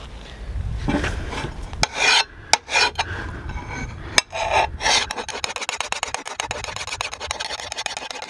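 Hand file rasping along the steel edge of a field hoe: several separate scraping strokes, then a run of quick continuous filing near the end, sharpening the bevel to bright new metal.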